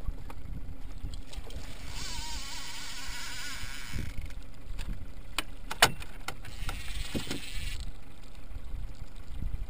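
Fishing reel drag buzzing as a hooked salmon pulls line: one run of about two seconds starting about two seconds in, then a shorter one near the end. A few sharp knocks come in between, over a steady low rumble of wind and water.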